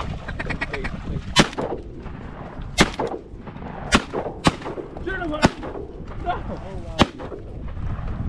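Shotgun shots at flying ducks, about six in all spread over some six seconds, two of them half a second apart near the middle.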